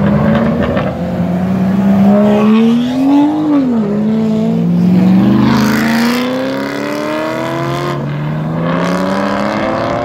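BMW E92 M3's 4.0-litre S65 V8 accelerating hard as the car pulls away. The revs climb, drop at an upshift about four seconds in, then climb again.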